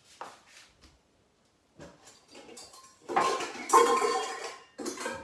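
Metal mixing bowls and cookware clanking in a lower kitchen cabinet as one bowl is pulled out: a few light knocks, then about three seconds in a loud clatter of ringing metal.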